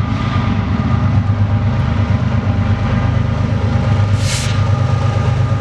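BNSF freight train rolling past with a steady, loud low rumble and faint steady tones above it. There is a brief hiss about four seconds in.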